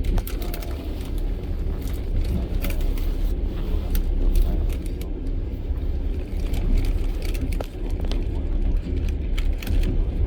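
Russian long-distance passenger train carriage running at speed: a steady low rumble with frequent irregular clicks and rattles from the wheels and car body.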